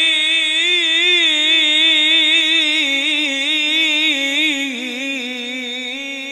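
A man reciting the Qur'an in melodic tilawah style, one long held line with wavering ornaments. The voice steps down in pitch about three seconds in and drops lower again near the end.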